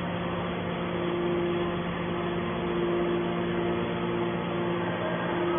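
Hydraulic scrap metal baler running: a steady machine hum with constant tones and no change in pace.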